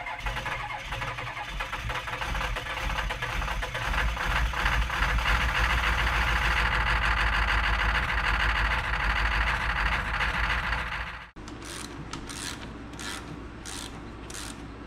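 A vehicle engine running and revving, growing louder about four seconds in, then cutting off abruptly. After it come a few short clicks from hands working under the hood, over a steady hum.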